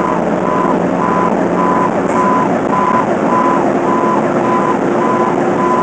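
Fire engine cab on the move: a steady drone of engine and road noise, with an electronic beeper sounding about twice a second.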